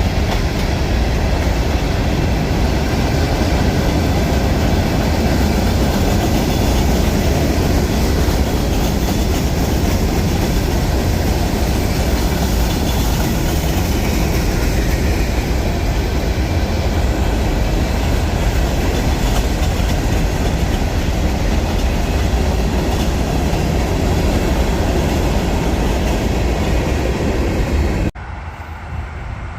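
Union Pacific train rolling past, with a steady loud rumble and clatter of cars on the rails. It cuts off abruptly about a second and a half before the end to a quieter sound.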